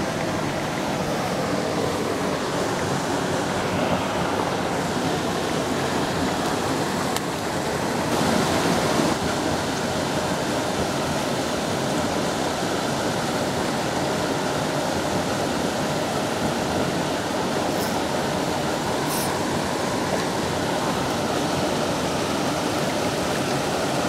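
Steady rush of water pouring through a spillway.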